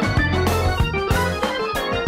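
Jazz-funk band music: an organ plays a fast solo line of quick, stepping notes over drums and a bass line.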